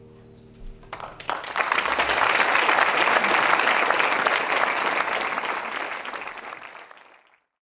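Audience applauding, starting about a second in as the last harp notes die away, building quickly, holding steady, then fading out near the end.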